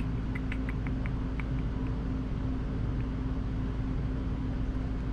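Steady low hum, with a quick run of light clicks in the first second and a half as a computer mouse is clicked.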